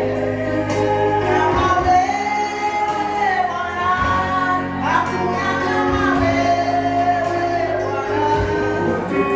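Gospel singing with instrumental backing: held chords over a steady bass, a singing melody line and regular percussion strokes.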